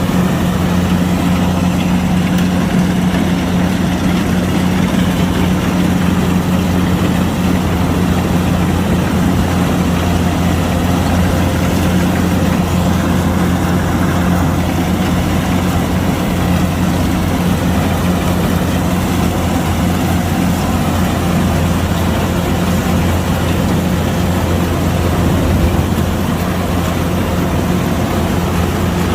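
Kubota DC105X combine harvester's diesel engine running steadily at a constant speed, with a low, even hum.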